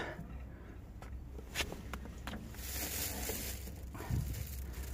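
A plastic water jug and belongings handled in a small camper trailer: a click, a brief rustle, then a soft thump near the end.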